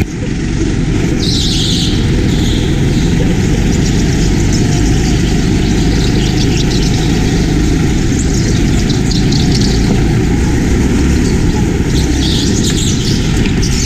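Petrol rental go-kart engine running hard through a lap, heard from the driver's seat as a loud, steady, noisy drone, with a few brief higher-pitched swishes along the way.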